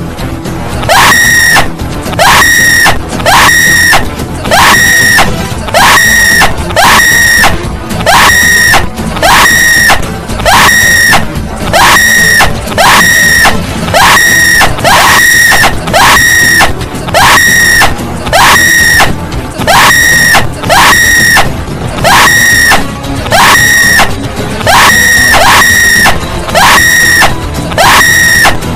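A loud scream looped over and over, about once a second, each one sliding sharply up in pitch and then held, over a steady music track.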